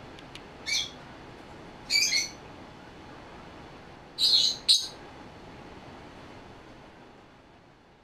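Small pet parrot giving short, high-pitched chirps four times within the first five seconds, over a low steady hiss.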